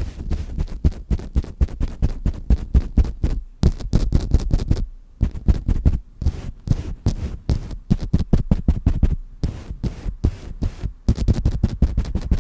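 Rapid, uneven dabbing and tapping against the microphone, several dull low thuds a second with a brief lull about five seconds in: liquid foundation being patted on in ASMR makeup role-play.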